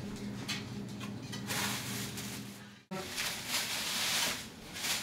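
Faint sizzling and stirring from a skillet of sausage gravy with milk just poured in, over a steady low hum that stops about three seconds in.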